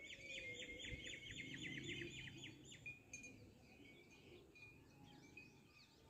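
Faint bird chirping: a quick run of about five short, high chirps a second for the first three seconds, then a few scattered chirps.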